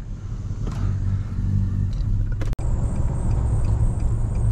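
Nissan vehicle's engine running with a steady low hum, heard from inside the cab; the sound cuts out for an instant about halfway through.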